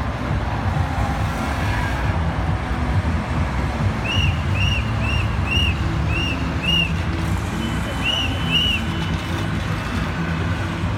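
Road traffic running through a city intersection: a steady low rumble of car and bus engines. Through the middle a series of about eight short high chirps sounds, roughly two a second.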